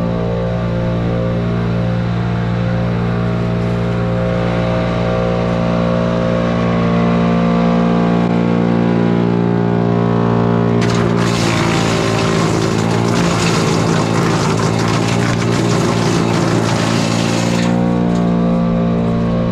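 Split-Fire wood chipper's engine running steadily. About halfway through, a harsh rush of crackling noise lasting around seven seconds as a piece of scrap wood is fed in and chipped, then the engine runs on its own again.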